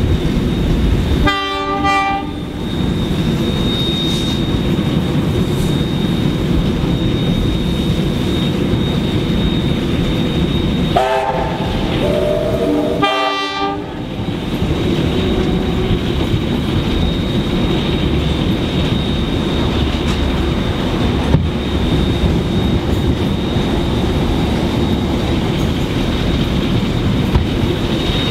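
Two trains running side by side, a steady loud rumble of locomotives and wheels on rail. Train horn blasts sound about a second in and twice more between about eleven and fourteen seconds in.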